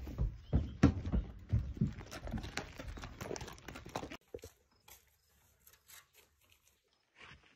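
Horse's hooves thudding on the ground in an irregular run of beats, about two or three a second, that cuts off suddenly after about four seconds, leaving near silence.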